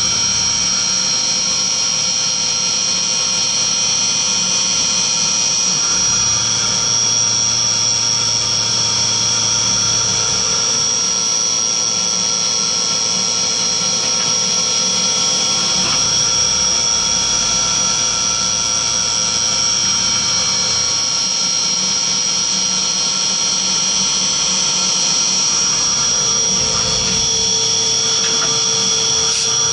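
Skyfire SVM1 CNC milling machine running a carbide end mill through an aluminium block: a steady high spindle whine with cutting noise underneath. A lower hum joins near the end.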